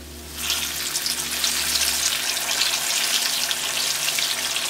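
Flour-dredged tilapia fillet frying in hot oil: the sizzle swells as the fish goes in, then crackles steadily.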